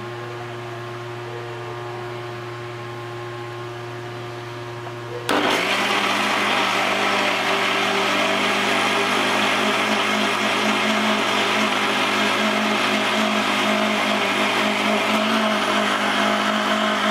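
Electric blender running, grinding onion, garlic, ginger and turmeric with liquid into a spice paste. About five seconds in its motor turns suddenly louder and higher in pitch, and it stays there steadily.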